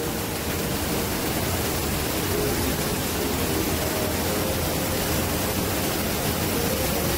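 A steady rushing noise, even throughout, with no distinct knocks or other events.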